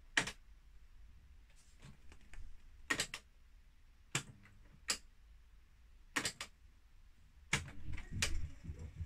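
A Philips D8254 radio cassette player's control buttons click, several sharp presses, some in quick pairs. About three-quarters of the way in, a low mechanical whir starts as the cassette transport begins rewinding the tape.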